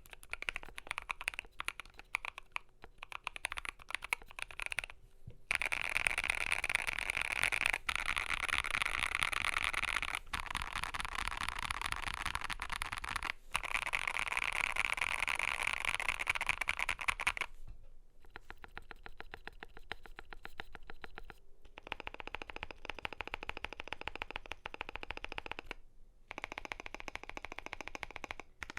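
Continuous typing on a KBDfans Blade65 custom mechanical keyboard with lubed Gazzew Boba U4T tactile switches, PBT keycaps and a polycarbonate plate: a dense run of keystroke clacks. It gets faster and louder from about five seconds in, then eases back at about seventeen seconds.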